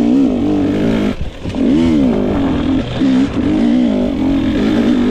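GasGas EX 250 two-stroke, fuel-injected dirt bike engine being ridden, revving up and down under throttle about once a second, with a brief drop in revs a little over a second in.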